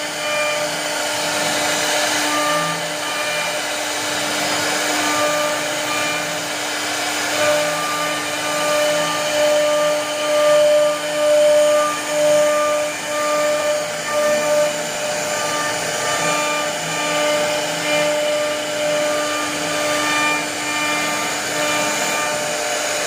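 CNC router spindle running with a steady whine while its bit carves a relief into a wooden door-frame panel; the cutting noise swells and eases every second or so as the bit works through the wood.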